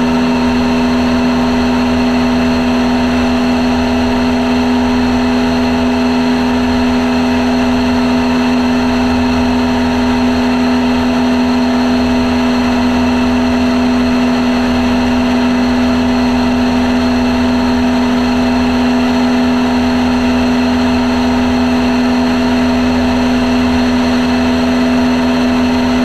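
Light aircraft's engine and propeller running steadily in flight: a loud, even drone at constant pitch.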